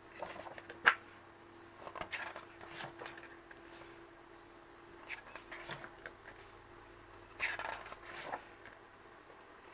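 Pages of a thick photo book being turned by hand: about four bursts of paper rustling and flapping, with a sharp snap of paper about a second in.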